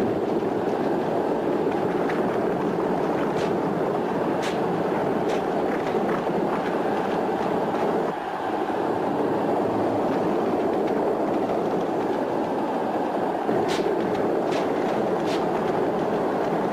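Four-horse chariot teams galloping: a dense, steady din of pounding hooves and rolling chariot wheels on a sand track, with sharp cracks here and there, several close together near the end.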